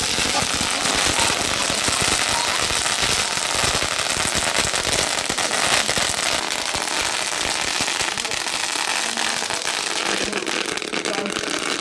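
A long string of firecrackers going off in a rapid, continuous run of sharp bangs, dense and unbroken for over ten seconds.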